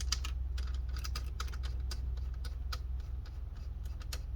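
Light, irregular clicks and taps of small screws and plastic laptop parts being handled while a screw is driven back into an HP Pavilion G7 laptop's chassis, over a steady low hum.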